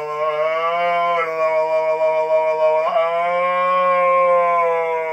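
A long, droning transmission coming over a Uniden Bearcat CB radio's speaker: drawn-out held notes that waver slightly in pitch and break off and start again twice, over a steady low hum, cutting off suddenly at the end.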